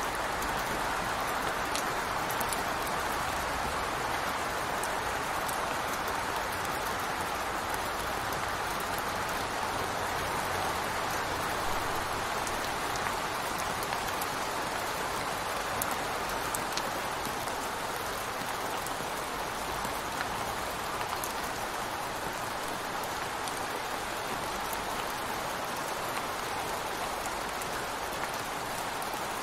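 Steady rain falling, an even hiss with occasional sharper ticks of single drops.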